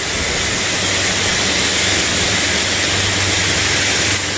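Steady, loud rushing noise of extraction fans, mixed with the hiss and crackle of stick welding and a gas cutting torch, over a low steady hum.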